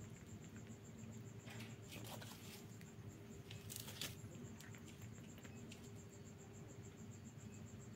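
A cat chewing and crunching on food scraps: faint, scattered small clicks in a few short clusters.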